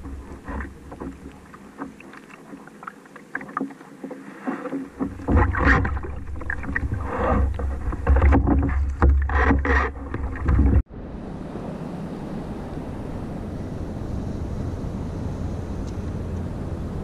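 Water splashing and irregular knocks against a plastic fishing kayak, over a heavy rumble of wind on the microphone. Partway through it cuts off suddenly and gives way to a steady wash of wind and water.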